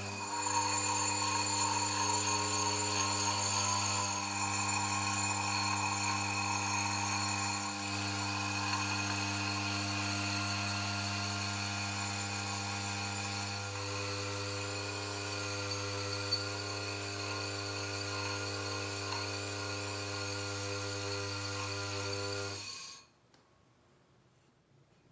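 Small electric workshop machine running steadily with a constant motor hum, then switched off and cutting out suddenly near the end.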